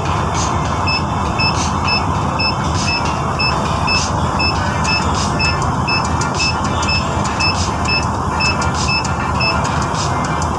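Steady vehicle engine and road noise with an electronic beeper. The beeper sounds a short, high beep about three times a second, starting about a second in and stopping shortly before the end.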